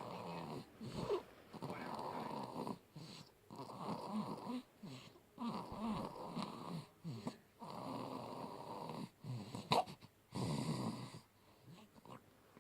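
A sleeping baby girl snoring loudly: about six rasping snores, each a second or so long, with quieter breaths between them. There is a single sharp click late on.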